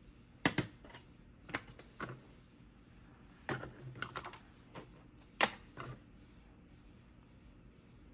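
Plastic petri dishes clicking and tapping as they are handled, their lids fitted and the dishes set down on a hard lab bench. The clicks are sharp, separate and irregular, about a dozen in the first six seconds, the loudest about five and a half seconds in.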